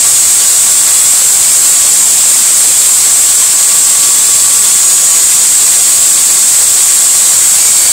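Electric drill running steadily with a Ford 302 engine valve chucked in it, spinning while carbon is cleaned off the valve head by hand. It makes a loud, even hiss with a faint motor whine underneath.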